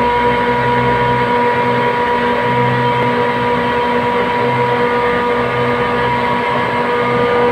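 Heavy machinery running steadily: a loud hum with constant high whining tones and a low throb that fades in and out every second or so.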